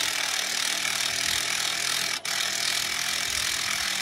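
Impact driver running continuously, turning the OSPREY PowerJack to pull on an earth anchor in a pull-out load test. The run breaks for an instant about halfway, then carries on.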